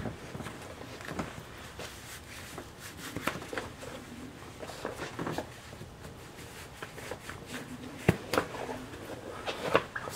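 Quiet rustling of fabric and soft knocks in a small room as socks and shoes are put on, with one sharper knock about eight seconds in.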